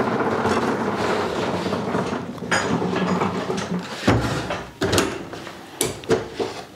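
Caster wheels of a wheeled table-saw cart rolling over a concrete floor, a steady rumble for about four seconds, then a heavy thump and a few knocks as the cart is brought to a stop.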